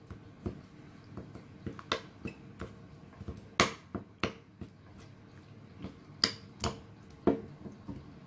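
Metal spoon stirring milk into a mix in a small glass bowl, clinking irregularly against the glass, with the loudest clinks a little past the middle and again near the two-thirds mark.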